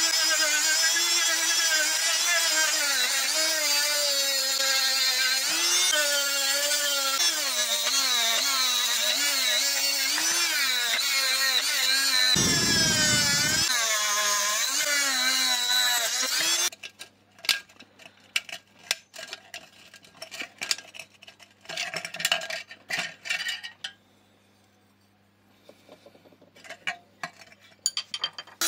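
A small high-speed power tool running with a whine that wavers up and down in pitch as it is worked. It stops abruptly about seventeen seconds in, followed by scattered light clicks and scraping, with a short quiet spell near the end.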